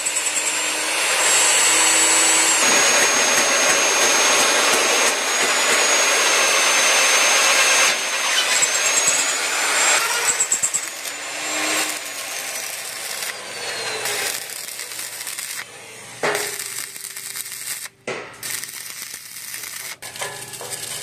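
Magnetic drill running and cutting a hole through a steel beam, a loud steady noise with a high whine. About ten seconds in it gives way to arc welding crackling, stopping and starting several times with short breaks.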